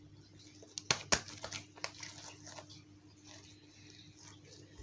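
Small objects being handled: a few sharp clicks and knocks about a second in, then faint scattered rustling over a low steady hum.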